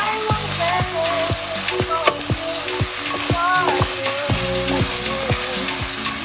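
Ground beef with onions and green pepper sizzling as it fries in a nonstick pan, stirred with a wooden spatula. Background music with a steady beat plays over it.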